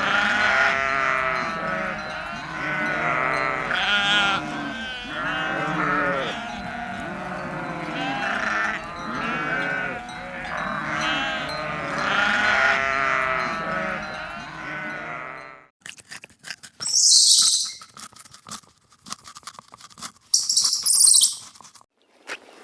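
A flock of sheep bleating, many overlapping calls at once. About two-thirds of the way through it cuts off abruptly, and a few clicks and two short, high-pitched bursts follow.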